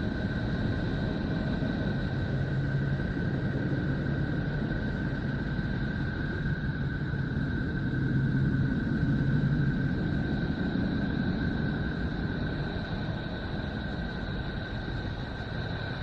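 Space sound presented as the recorded sound of a planet, a spacecraft recording turned into audio: a steady low rumbling drone with two thin, steady high tones held above it, swelling slightly about halfway through.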